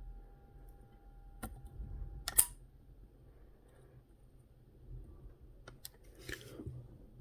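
Scattered clicks and taps from handling a soldering gun and a wire at a circuit board during soldering. A faint steady tone stops about two seconds in, followed by a sharp click, the loudest sound. A brief rustle comes near the end.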